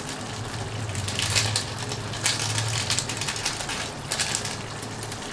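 Plastic spice packet crinkling and rustling in the fingers as garam masala is sprinkled out of it, irregular crackles over a low steady hum.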